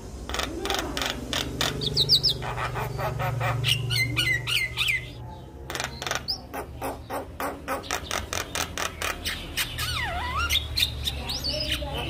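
Javan myna singing: fast runs of harsh clicking, chattering notes mixed with quick whistled slurs, and a long swooping whistle near the end.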